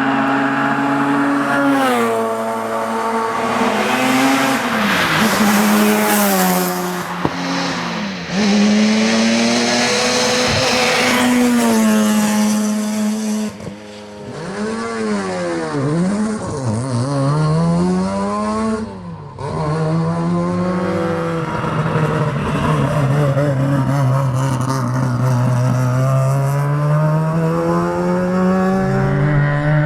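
Mazda RX-7's rotary engine being driven hard on a tarmac rally stage: the engine note climbs through the revs, drops sharply at each gear change or lift, and climbs again, over and over. There are two brief lifts off the throttle about 14 and 19 seconds in.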